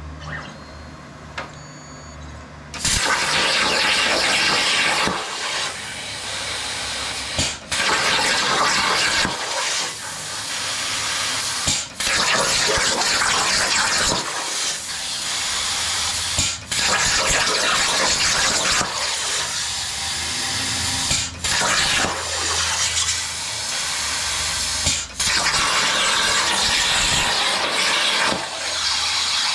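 Plasma cutting torch on a Langmuir Crossfire CNC table cutting metal: a loud, steady rushing hiss of the arc and its air that starts about three seconds in after a low hum, and drops out for a moment several times.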